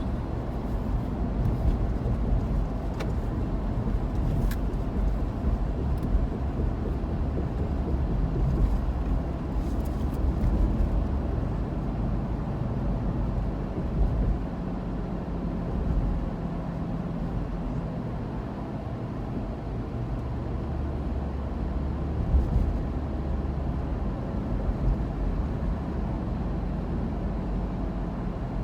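A car driving, with steady low engine and road rumble and a few faint clicks near the start.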